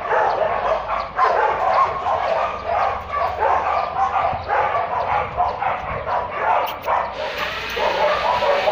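Many dogs barking and yelping at once in a shelter, a dense overlapping chorus of calls.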